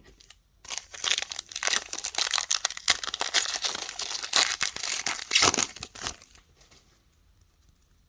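Plastic wrapper of a 2021-22 NBA Hoops trading-card pack crinkling and tearing as it is opened, a dense crackle lasting about five seconds and stopping a couple of seconds before the end.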